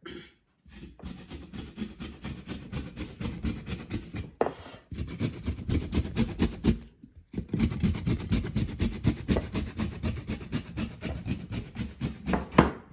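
A piece of peeled fresh ginger being grated by hand on a small kitchen grater. It makes quick, even rasping strokes in three runs, with two brief pauses.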